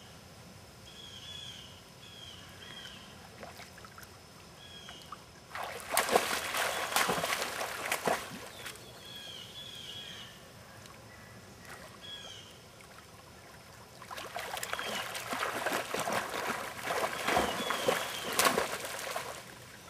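A dog splashing and paddling in shallow, muddy pond water. The water sloshes loudly twice: about six seconds in for roughly two seconds, and again through most of the last six seconds.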